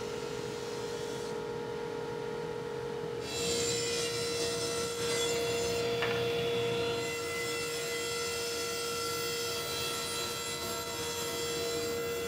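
Woodworking machines at work: a thickness planer feeding a board, then a table saw ripping boards into narrow strips. A steady motor whine runs under it all, and the higher cutting noise thickens about three seconds in.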